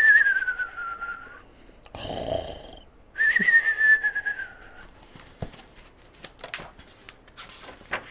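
A man imitating a cartoon snore, as a sleeping bear would: a whistle sliding down in pitch, a rasping snore, then a second whistle. A few faint clicks follow.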